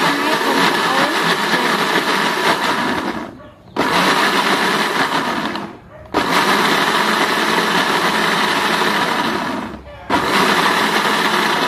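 Electric blender motor running loud, puréeing a thick red chili mixture in its jar, in four bursts: it stops briefly three times and starts again.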